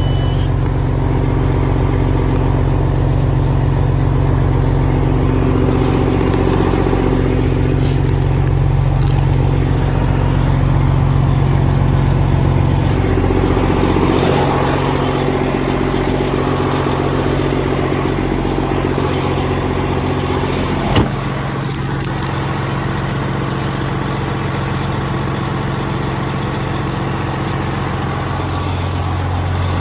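Freightliner Classic XL's 14-litre diesel engine idling steadily after a cold start. Its low hum drops lower about thirteen seconds in, and a single sharp knock comes about twenty-one seconds in.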